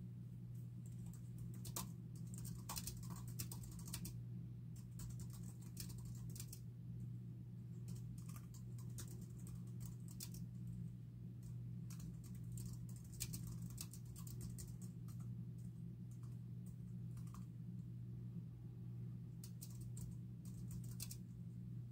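Typing on a low-profile computer keyboard: quick runs of key clicks in bursts, with a pause of a few seconds before a last short burst near the end. A steady low hum runs underneath.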